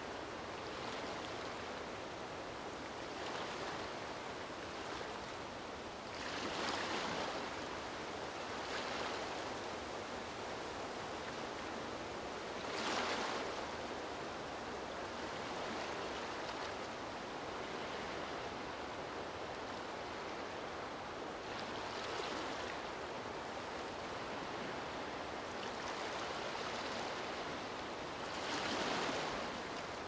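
Small waves lapping at a lagoon shore: a steady wash of water with louder splashes every few seconds.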